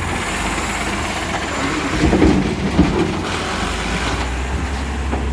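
Natural-gas garbage truck with a Heil Rapid Rail automated side-loader body, its engine running steadily while the arm works. A louder metal clatter with a sharp knock comes about two to three seconds in.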